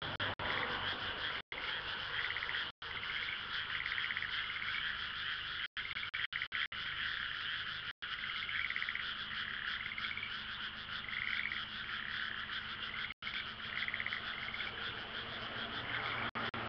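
A chorus of frogs croaking, many calls blending into a steady trilling din, with single pulsed croaks standing out every second or two. The sound cuts out for an instant several times.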